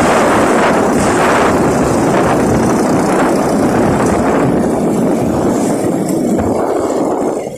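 Steady wind rush on the microphone of a moving motorcycle, mixed with the motorcycle's engine and road noise; the rush eases slightly near the end.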